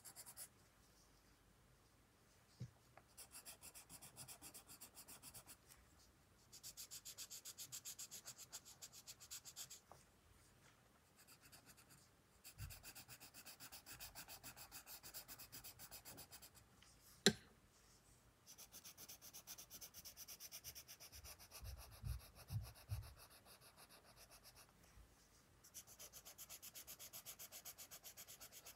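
Colored pencil shading on sketchbook paper: stretches of fast back-and-forth scratchy strokes lasting several seconds each, with short pauses between. A single sharp click about two-thirds through, and a few soft low knocks a few seconds later.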